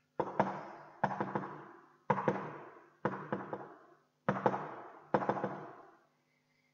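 Someone knocks by hand on a freestanding wooden door: three pairs of knocks about a second apart, each one echoing on in a large, reverberant hall.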